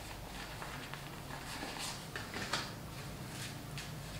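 Faint, scattered rustles and light handling noises as a black fabric piece is turned over and unfolded by hand, over a low steady hum.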